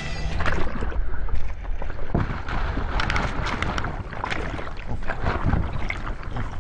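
Sea water rushing and splashing close to the microphone, with wind buffeting it in a low rumble.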